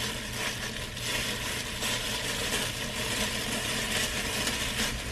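Plastic-gloved hands rubbing and squeezing hair dye through wet hair strands, a steady soft rustling over a low background hum.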